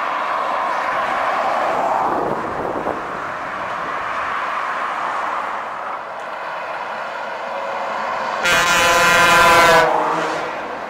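Heavy trucks passing on a road, their engines and tyres rising and fading. About two thirds of the way through, a truck's air horn blows once, loud, for just over a second, its pitch sliding slightly down as the truck goes by.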